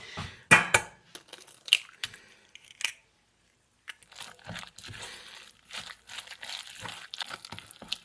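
Crumbled firm tofu and chopped vegetables being mixed together in a bowl: irregular scraping, clicking and squishing. The sound stops for about a second near the middle.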